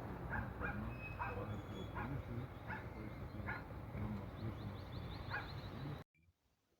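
Dog barking repeatedly in short yips, over a steady background noise. The sound cuts off suddenly about six seconds in, leaving a few faint clicks.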